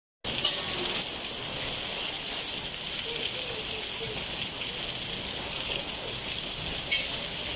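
Heavy rain pouring onto a flat concrete rooftop and the water pooled on it: a steady, even hiss. Two sharper taps stand out, one about half a second in and one near the end.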